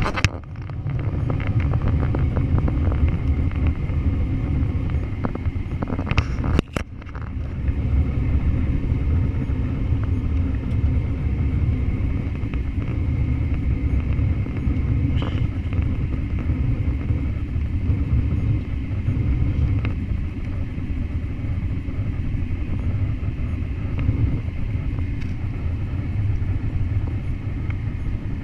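Steady low cabin rumble of a jet airliner in flight, engines and airflow heard from inside the passenger cabin during the descent on approach to land. The level dips briefly twice, just after the start and about six to seven seconds in.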